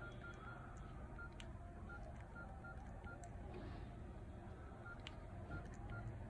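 Nokia E71 keypad tones: about ten short beeps at one pitch, irregularly spaced, one for each press of the navigation key while scrolling through the phone's menus. Faint key clicks sit over a low steady rumble.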